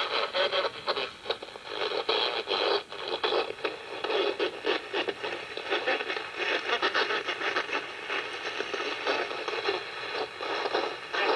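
Shortwave broadcast audio coming from a Kenwood TS-440S HF transceiver's speaker, a station's programme mixed with static, its strength rising and falling.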